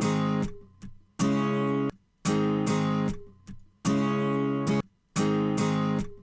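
Recorded acoustic guitar playing a heavy strummed chord figure, repeated on a short playback loop: five strums in about six seconds, each starting sharply and stopping short.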